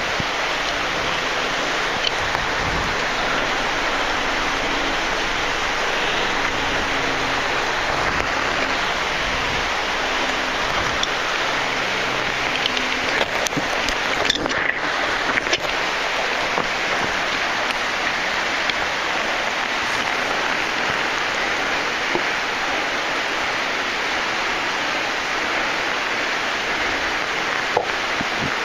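Waterfall spray crashing onto rock, a steady rush of water. A few faint knocks come through about halfway.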